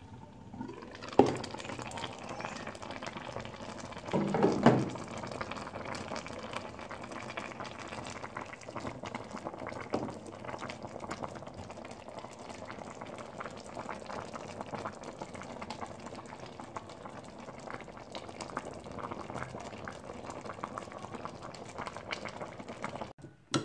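Chicken, chopped onions and oil bubbling and crackling steadily as they simmer in a pot for Moroccan bastilla filling. A sharp knock about a second in and a louder brief clatter around four seconds in.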